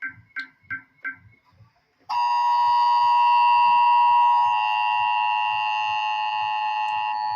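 Emergency Alert System alarm: a run of short high beeps about three a second that stops about a second in, then after a brief gap a loud, steady multi-tone attention signal starts about two seconds in and holds on. Faint low pulses repeat underneath.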